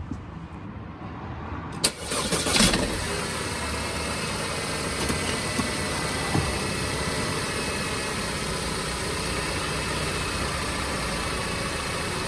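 Audi A5 engine being started: a click and a short burst of cranking about two seconds in, then it catches and settles into a steady idle.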